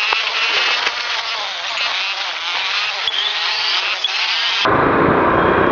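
A Suzuki Gixxer SF motorcycle ridden slowly through a busy street, heard from its own camera: engine and street noise with scattered sharp clicks and crackles. About four and a half seconds in, the sound cuts abruptly to a louder, deeper rush of wind and engine.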